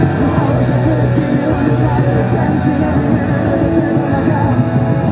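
Rock song playing, with guitar and a singing voice.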